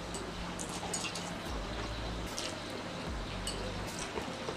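Close-up eating sounds: scattered short clicks and smacks as spicy instant noodles are chewed and a metal fork works in a stainless steel tray, over a steady hiss.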